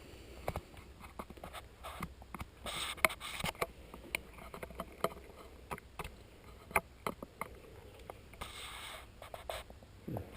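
Footsteps and scuffs of someone walking slowly over bare floors: irregular clicks, knocks and scrapes, with a couple of longer rustling stretches.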